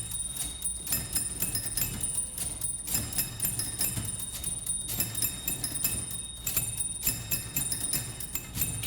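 Old manual typewriters played as percussion instruments: rapid, rhythmic key clatter with carriage bells ringing, in a repeating pattern.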